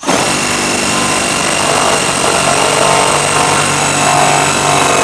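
Cordless impact driver hammering steadily for about five seconds, then stopping. It is running a bolt through a half-inch socket to crush a crush sleeve (rivet nut) into a pickup bed's mounting hole.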